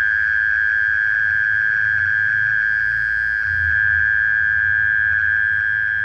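A night-singing insect's continuous trill: one steady, unbroken high-pitched note.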